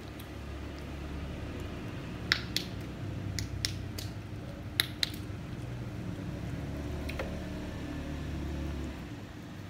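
Cat eating wet food and dry kibble close up: steady wet chewing and licking. A run of sharp crunches between about two and five seconds in, and one more near seven seconds, sound like pieces of kibble being bitten.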